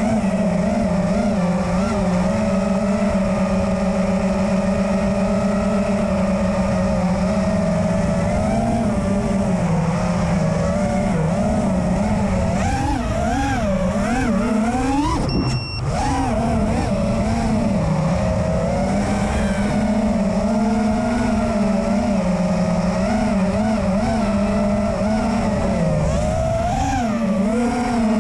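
Electric motors and propellers of a five-inch FPV quadcopter (DYS 2306 2500kv brushless motors, Ethix S3 props), heard from on board, running with a steady whine. The pitch wavers up and down with the throttle, climbs to a peak about halfway through, drops out for a moment and then settles back to a steady cruise.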